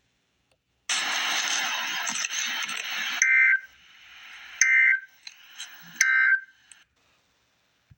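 A hiss of static for about two seconds, then the Emergency Alert System's end-of-message signal: three short screeching data bursts, each under half a second and about a second and a half apart, marking the end of the alert.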